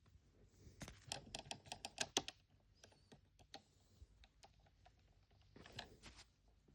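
Faint clicks and taps of small plastic miniature grocery items being handled and set into a toy fridge, with a quick run of them about a second in and a few more near the end.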